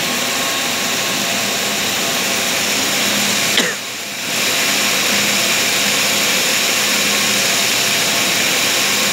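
Single-jersey circular knitting machine running steadily: a dense, even mechanical whirr with a faint steady hum. About three and a half seconds in there is a short click and the sound briefly drops, then carries on as before.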